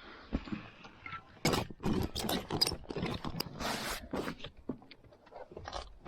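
Irregular rustling and scraping of objects being handled, with a loud heavy thump at the very end.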